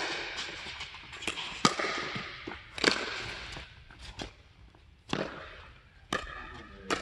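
Pickleball rally: paddles striking the hollow plastic ball, a sharp pop roughly every second, about eight in all, each echoing briefly in the large indoor hall.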